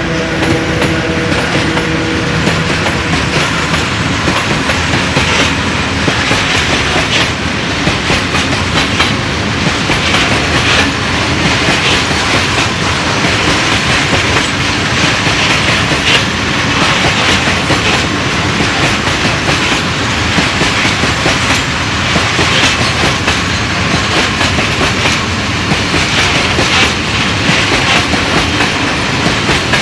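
Freight train of loaded open wagons rolling past, its wheels clattering steadily over the rail joints. A steady tone from the train stops about two seconds in.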